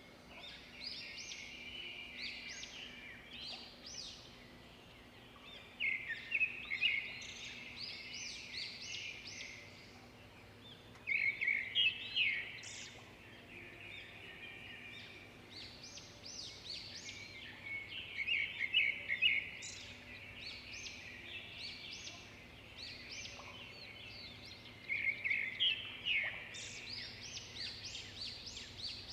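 A songbird singing short phrases of quick chirping notes, a new phrase about every five to seven seconds, over a faint steady low hum.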